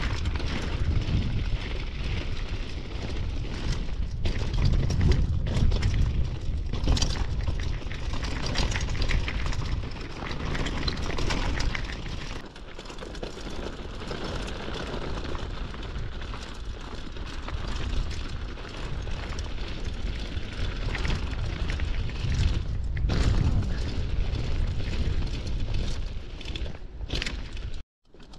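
Mountain bike rolling down a rough dirt track: wind buffeting the microphone in an uneven low rumble, over the clatter and knocks of the bike on the bumps. The sound cuts off abruptly near the end.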